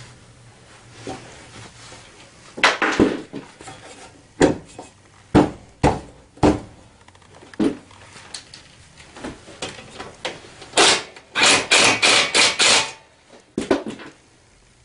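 Metal knocks and clanks of the ATV's rear rack, its bolts and a ratchet being worked, with a quick run of clicks and taps about eleven seconds in.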